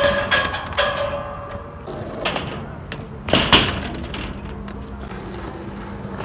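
Skateboard hitting the pyramid and clattering: a sharp crack with ringing right at the start, a smaller knock about two seconds in, and the loudest clatter about three and a half seconds in as the board comes down. After that, skateboard wheels roll with a steady hum.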